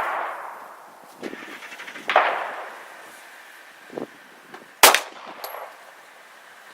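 Two pistol shots, one about two seconds in and one about five seconds in, each followed by a decaying echo, with a few small metallic clicks between them.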